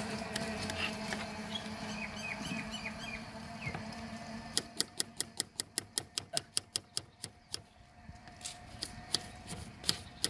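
Knife chopping on a cutting board: a quick, even run of sharp taps, about seven a second, starting about four and a half seconds in, then a few scattered taps near the end.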